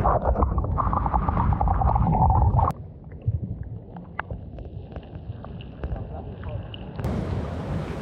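Seawater churning and bubbling around a submerged microphone, cut off suddenly into a muffled underwater hush with faint scattered ticks. Surf and wind noise on the microphone return abruptly near the end.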